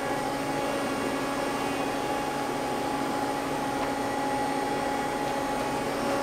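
Steady machine hum of a powered-up Mazak CNC lathe, a few constant tones over an even hiss.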